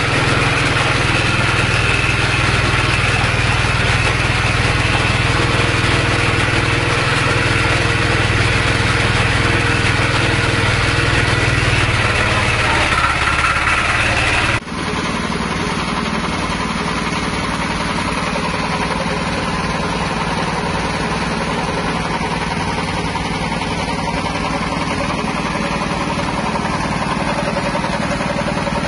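Small 5.5 hp petrol engine running steadily, belt-driving a horizontal pellet mill that presses fish-feed mash out through its die as pellets. About halfway through, the sound cuts abruptly to a slightly quieter, steady run.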